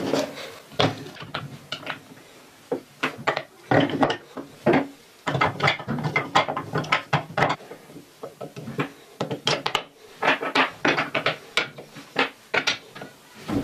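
Wooden puzzle pieces of a mosque model knocking and clacking against each other and the wooden base as they are fitted together fast: many quick, irregular knocks, with a short lull about two to three seconds in.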